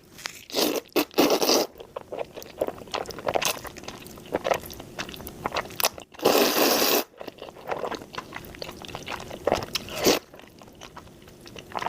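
Close-miked eating of black bean noodles (jjajangmyeon): crunchy chewing and wet mouth clicks, with a few louder bursts of noisy eating sound.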